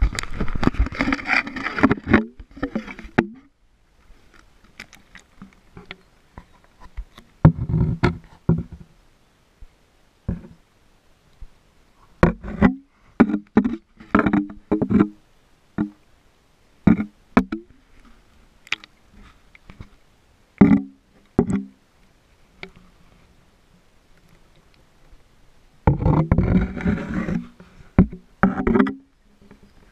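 A GoPro's waterproof housing knocks and scrapes against creek rocks while held underwater, sounding as dull, separate thuds and clicks through the sealed case. Two stretches of rushing, splashing water come at the start and again near the end, as the camera is moved through the shallow creek.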